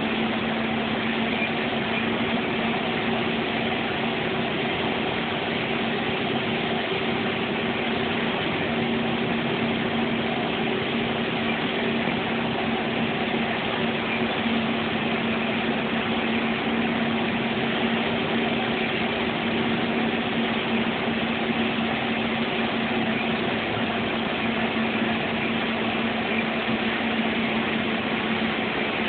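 Bus engine and road noise heard from inside the cabin while driving at a steady speed: an even drone with a constant low hum.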